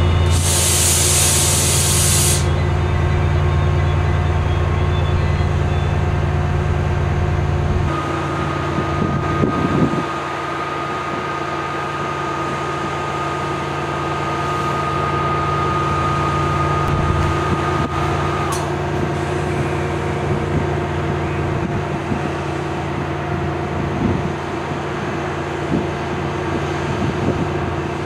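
Class 68 diesel-electric locomotive's Caterpillar V16 engine running steadily as the train stands, with a hiss of air lasting about two seconds near the start. About eight seconds in the engine note drops, and a steady high whine sounds for about ten seconds.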